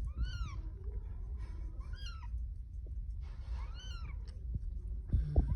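Newborn kitten mewing three times: thin, high cries that rise and fall, each under half a second, about two seconds apart. A low rumble runs underneath, with a couple of thumps near the end.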